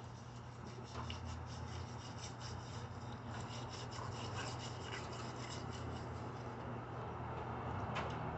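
Hand scrubbing the outside of a green glass 7-Up bottle with sand and soap: quick, gritty rubbing strokes in a rapid run, over a steady low hum.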